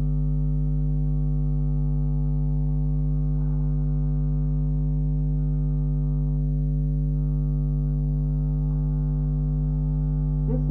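Steady electrical mains hum with a buzzy stack of overtones, unchanging throughout.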